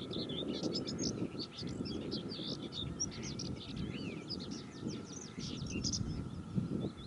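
Songbirds singing, a fast run of high chirps and short trills, over a low, uneven rumble.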